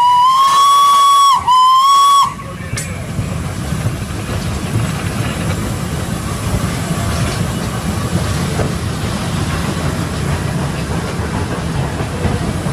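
Flying Scotsman's steam whistle sounded in two loud blasts, the second ending about two seconds in, followed by the steady rumble and hiss of the steam locomotive running, heard on the footplate.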